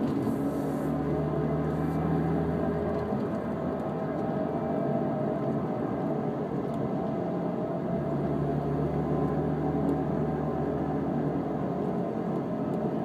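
Mini Cooper S R53's supercharged four-cylinder running, with a steady grinding noise of unknown origin that the owner guesses may be the clutch, which has started to slip.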